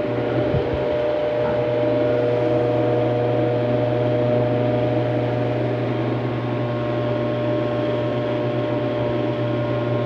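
Electric stand fan running at top speed while oscillating, fed through a series bank of test lamps: a steady motor hum with a higher whine over it. The noise comes from a worn shaft and bushings with too much play.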